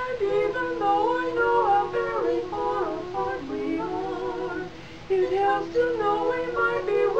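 A quartet of women singing a cappella in harmony, several voices holding different notes at once, with a softer phrase just past the middle.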